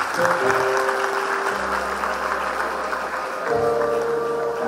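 Background music of long held notes over a bass line, changing notes about every second and a half, with an audience applauding.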